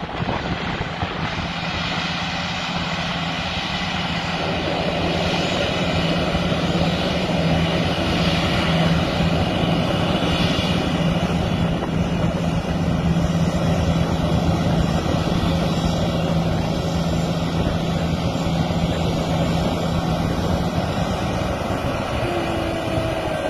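Boeing 737 jet engines running at taxi power, growing louder as the airliner approaches, over the steady hiss of water-cannon spray. A steady low hum runs underneath and stops near the end.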